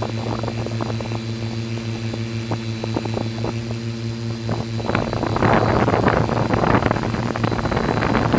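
Multirotor drone's propellers humming steadily, with crackling wind buffeting on the microphone that turns louder and rougher about five seconds in.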